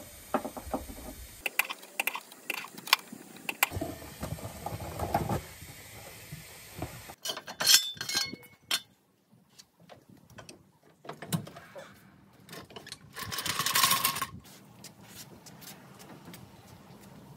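Scattered clicks, knocks and clattering of tools and parts being handled while working on the car, with a loud clatter about seven and a half seconds in. A hiss lasting about a second comes near the end.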